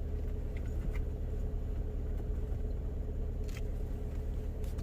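Subaru Forester e-BOXER's flat-four engine running steadily at about 1000 rpm while charging the hybrid battery: a low rumble with a steady hum above it, the unusual noise the owner is concerned about at this speed. A couple of faint clicks near the end.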